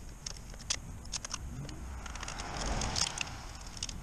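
Light metallic clicks and ticks of hand tools against the rocker arms of a Caterpillar 3116 diesel's valve train during a valve lash adjustment. A brief rush of noise swells and fades near the end.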